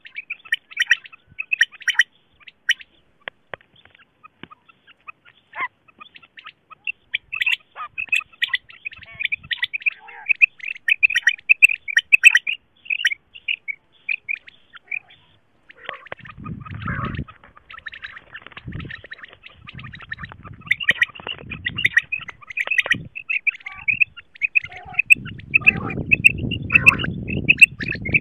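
Female common quail (batair) calls: quick runs of high, rapid chirping notes. From about halfway through, bursts of low rumbling noise run beneath the calls.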